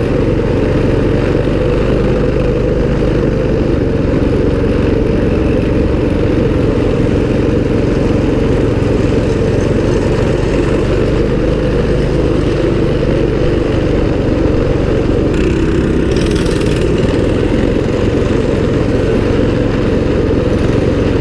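A mini bike's 196cc single-cylinder engine running steadily while the bike rides along, heard from the handlebars.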